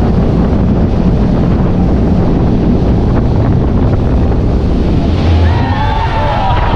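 Wind buffeting the microphone over the rumble of a fast motorized watercraft and rushing water. Near the end, high voices cry out.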